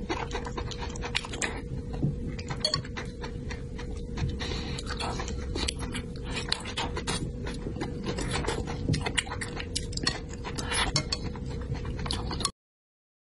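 Close-miked chewing of soft, saucy braised food, full of wet mouth clicks and lip smacks, over a steady low hum. The sound cuts out abruptly near the end.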